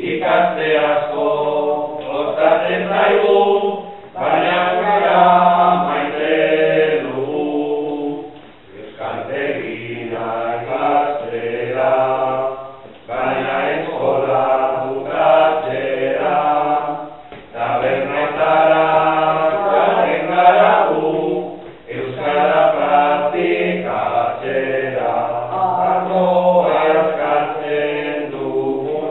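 A group of voices singing Basque coplas together, line after line in phrases of about four and a half seconds, each followed by a brief breath.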